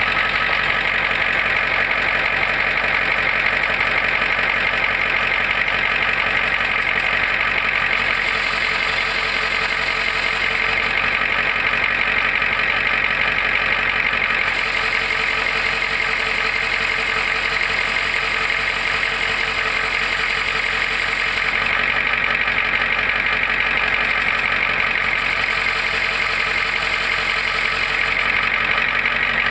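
Ford F-350 running with its transmission engaged in gear: a steady mechanical whir with a fast, even rattle beneath it. This is the noise that comes whenever the transmission is put in a gear.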